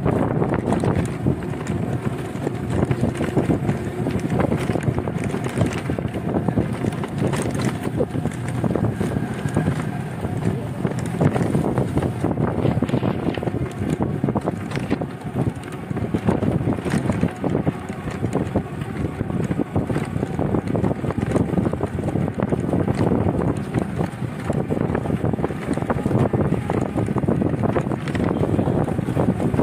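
Wind buffeting the microphone of a phone filming from a moving cycle rickshaw: a steady, rough rumble.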